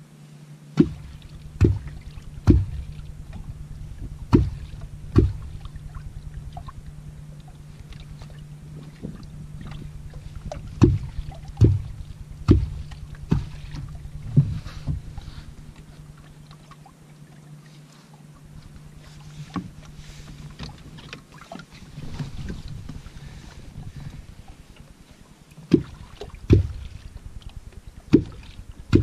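A wooden catfish clonk (kwakhout) struck into the water in runs of three to five strokes, about a second apart. Each stroke is short and low with a brief tail. This is the clonking used to call wels catfish up to the bait.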